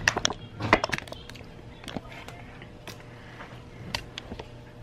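Light clicks and knocks of a drinking glass and items being handled on a tabletop: a quick cluster in the first second, then a few scattered single taps.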